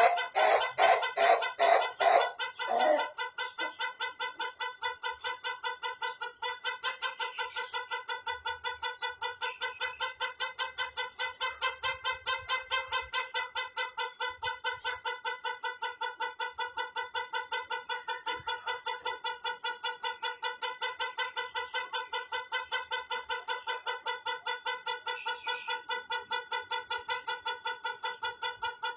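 White rooster crowing in one very long, stuttering call: a fast, even run of short notes on a steady pitch. The call is louder for about the first three seconds, then carries on quieter and very regular.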